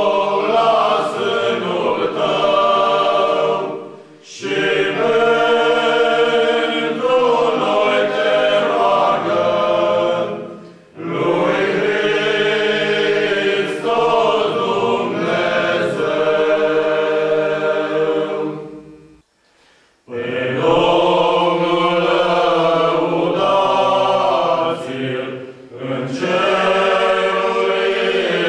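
Men's choir singing a cappella, several voices together on held chords. The singing comes in phrases of about six to eight seconds with short breaths between them, and one near-silent pause about two-thirds of the way through.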